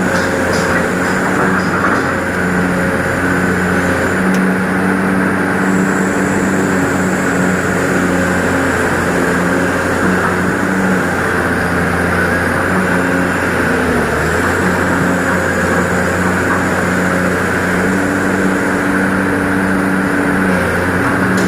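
Excavator's diesel engine running steadily under load while digging, with a thin high whine that comes and goes.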